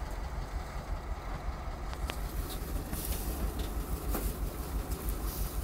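A vehicle engine idling with a steady low rumble. A few faint clicks and knocks come through, around two and four seconds in.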